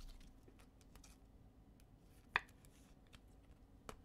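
Faint clicks and light rubbing of trading cards being handled, with two sharper clicks about two and a half and four seconds in.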